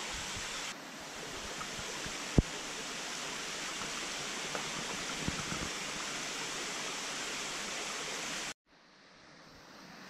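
Steady rushing of a stream and waterfall, with a single sharp click about two and a half seconds in. The water sound breaks off abruptly near the end, then slowly returns.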